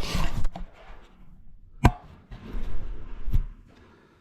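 Hand tools being handled at a tractor engine block: a brief rustle, then two sharp clicks about a second and a half apart, with some shuffling noise between them.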